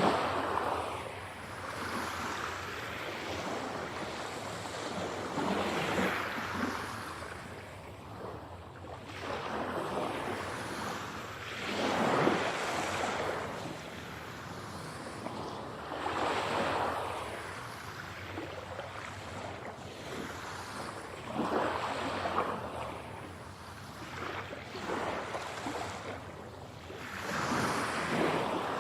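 Ocean waves breaking and washing on a shore, a surge every four to five seconds, rising and falling; the audio is processed to pan around the head (8D).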